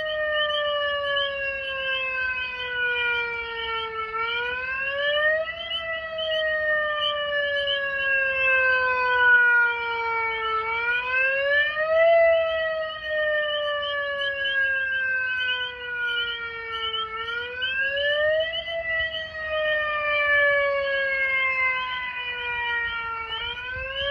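Megaphone's electronic siren used as a tornado siren. Its wailing tone climbs quickly, then slides slowly back down, and repeats about every six and a half seconds, four times over.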